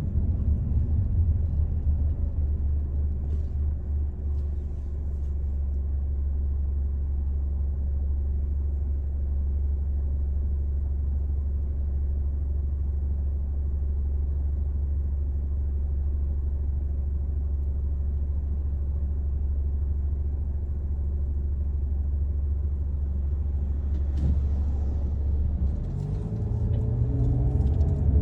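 Steady low road rumble heard inside a moving car. Near the end the engine note rises in pitch as the car speeds up.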